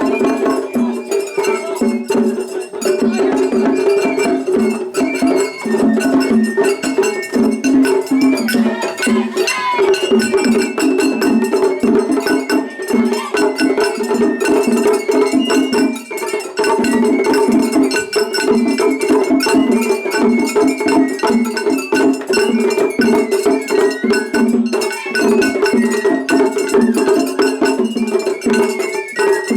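Japanese festival hayashi music played loudly and without a break: clanging hand gong and drums in a driving, repeating rhythm, with a bamboo flute melody over them. It is a seriai, where rival floats' hayashi groups play against each other at the same time.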